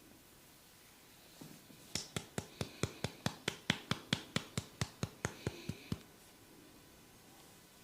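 Hands tapping rapidly on a person's head during a massage: about twenty quick, evenly spaced slaps at roughly four to five a second, lasting some four seconds before stopping.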